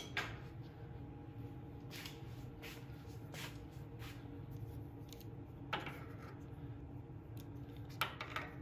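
Metal hand tools clinking as a pair of slip-joint pliers is picked up and brought to the engine: a few scattered sharp clicks, the loudest just after the start and about eight seconds in, over a steady low hum.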